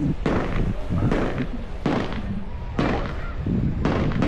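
Fireworks display: about five loud bangs roughly a second apart, each followed by a lingering echo.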